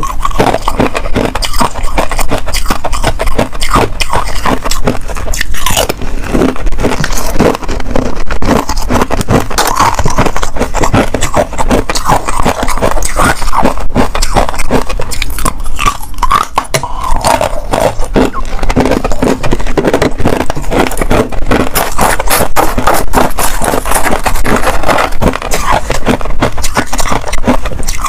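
Close-miked biting and chewing of hard ice and pink frozen frost ice: a dense, continuous run of crackling crunches.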